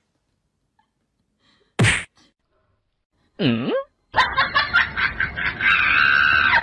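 Comedy sound effects with no natural sound between them. A single sharp whack comes about two seconds in, and a short tone that dips and rises follows a moment later. About four seconds in, a dense, busy stretch of sound starts and continues.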